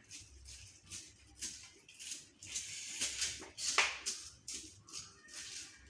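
Fresh maize kernels being stripped off the cob by hand, an irregular run of short, crisp crackles and rattles several times a second.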